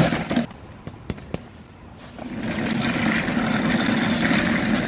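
Office chair casters rolling over a concrete sidewalk: a steady grainy rattle that starts a little over two seconds in. Before it, a sharp knock at the very start and a couple of light clicks as the chair is handled and sat in.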